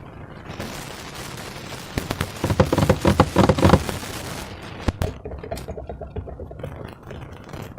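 Slime being squeezed and worked by hand, with a rapid run of crackling air-bubble pops that is loudest in a dense burst from about two and a half to four seconds in, plus a few single sharp snaps.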